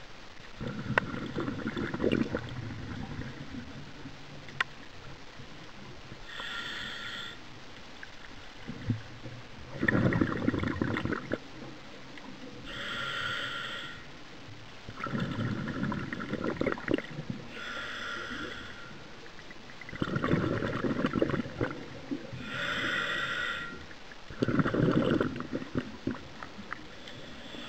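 Scuba diver breathing through a regulator underwater: three short hissing inhalations through the demand valve, with bursts of low bubbling exhaust bubbles between them.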